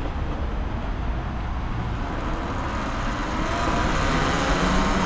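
Talaria Sting electric dirt bike being ridden, wind buffeting the microphone with a heavy rumble. A faint motor whine rises in pitch and the sound grows louder near the end as the bike speeds up.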